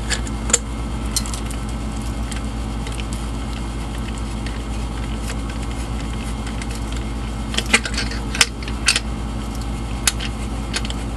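A few light metallic clicks and clinks as a thread tap is turned back out of a freshly tapped metal oven door handle and pulled free, most of them in a cluster a little past halfway. A steady low hum runs underneath.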